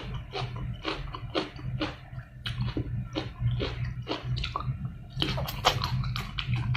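Close-miked chewing and biting of a spicy papaya salad with blue crab and raw shrimp: a quick run of sharp wet crunches, a few a second, over a steady low hum.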